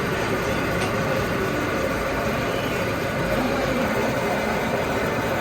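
Industrial gear hobbing machine running steadily, a constant mechanical hum with a few faint steady tones.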